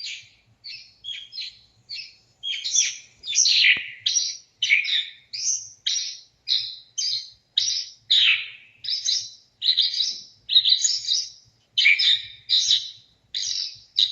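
A songbird mimic singing a long, varied song of short high chirps and whistled notes, about two to three a second, copying the calls of other birds.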